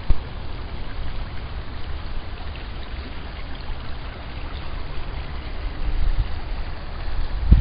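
Small woodland brook babbling over stones, heard as a steady faint rush, under a low rumble on the microphone that grows louder over the last couple of seconds. A single knock sounds right at the start.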